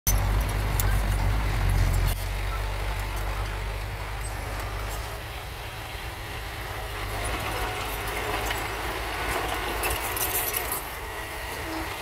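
Small crawler bulldozer's diesel engine running under load, with the steel tracks clinking and clattering over rocky soil. The engine is loudest for the first two seconds, then eases to a lower level.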